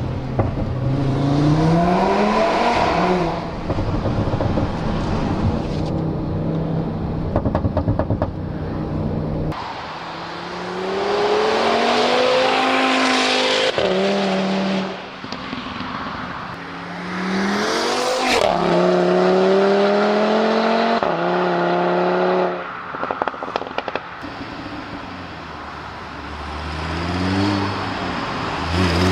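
Audi RS3 8V's turbocharged 2.5-litre inline five-cylinder engine accelerating hard through the gears, its pitch climbing and then dropping back at each upshift. When the throttle is lifted there are bursts of crackles and pops from the exhaust.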